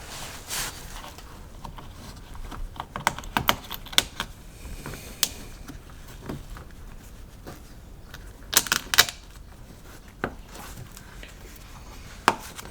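Irregular sharp clicks and taps as a washer and bolt are handled and fitted behind a car's plastic side skirt. The clicks bunch about three to four seconds in and again near nine seconds, with single ones in between.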